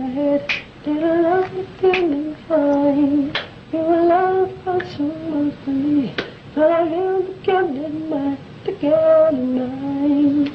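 A man's high, light voice singing wordless syllables, a series of short held notes that step up and down, each started with a hard consonant attack: a composer's demo work tape laying out a melody and instrument parts by voice, played back in a room.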